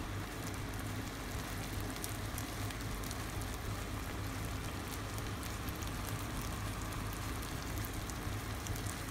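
Pork binagoongan sizzling in a pan, a steady fine crackle over a low steady hum.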